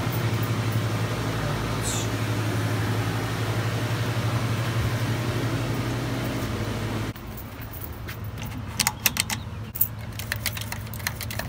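Pool pump equipment running with a steady low hum. About seven seconds in it gives way to sharp clicks and jingles as a key card on a key ring is handled and pushed into an Onity card-reader door lock.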